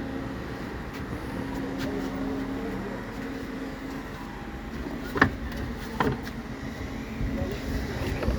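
A boat's engine running steadily, with two sharp knocks about five and six seconds in.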